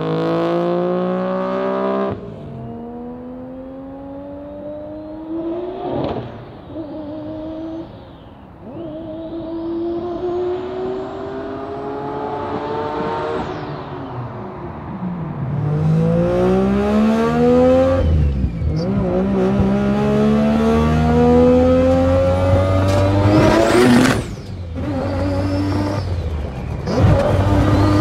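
Mazda RX-7's turbocharged three-rotor rotary engine accelerating hard through the gears, its pitch climbing in each gear and dropping sharply at each shift, about six times. It grows fainter in the first half, then louder again through the second half.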